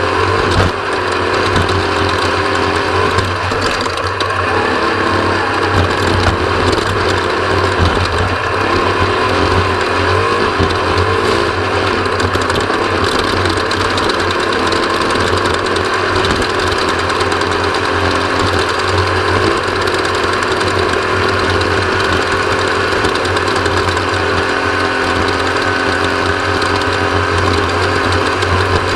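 Off-road race vehicle's engine running steadily, with rattling and a constant rushing noise of the run over the course.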